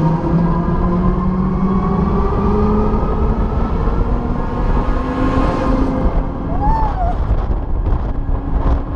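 Mondlift fairground ride running loudly, its machinery note rising over the first few seconds as the ride speeds up, over a low rumble of wind on the onboard microphone. A short rising-and-falling tone sounds once, about seven seconds in.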